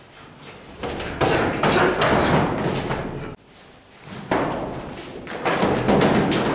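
Thuds and slaps of hand-to-hand sparring: strikes, stamping feet and bodies hitting the floor, with an echoing tail in the hall. They come in two dense spells, and the first breaks off suddenly about three seconds in.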